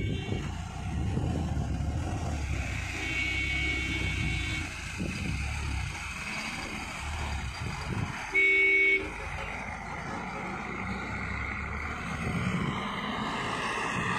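Container truck's engine running steadily as it turns a hairpin bend, with a vehicle horn sounding: a long, fainter toot about two and a half seconds in, then a short, loud horn blast just after eight seconds.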